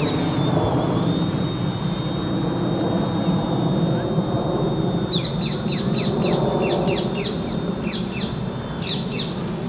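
Gaui 330XS electric quadcopter flying high overhead, a faint steady whine over a low background rumble. Birds chirp in quick falling notes over the second half.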